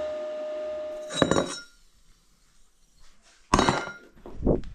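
Metal parts clinking and clanging on a workshop bench. A steady hiss with a held tone stops about a second in, a short clink follows, then after a quiet stretch comes one sharp ringing metal clang and a few lighter knocks near the end.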